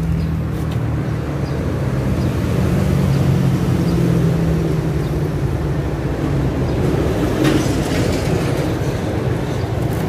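Steady low mechanical hum of a running machine or motor, with a few faint clicks about seven and a half seconds in.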